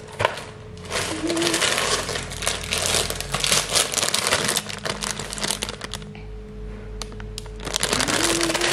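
Plastic grocery packaging crinkling and rustling as a bag of mixed vegetables and clear plastic salad tubs are handled and set down on a kitchen counter, with many small clicks and taps. It comes in two spells, easing off for a moment about six seconds in.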